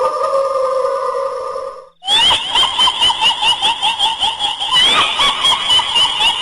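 A shrill, drawn-out tone that falls slowly in pitch and cuts off abruptly about two seconds in. It is followed by rapid, squeaky repeated notes like high cackling laughter, about four a second.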